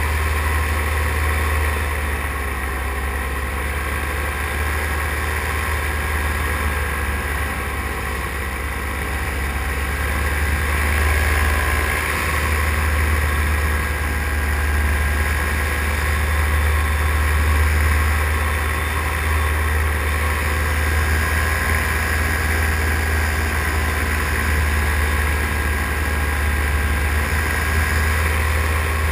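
Paramotor engine and propeller running steadily in flight, a continuous engine drone with a strong low hum, growing a little louder about ten seconds in.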